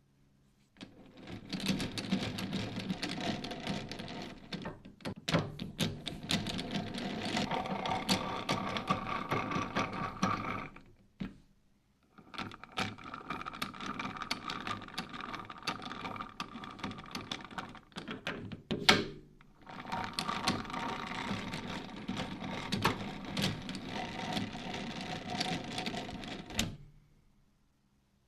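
Manual lathe running with a steady clattering mechanical rattle and a faint whine, in three long stretches separated by short stops.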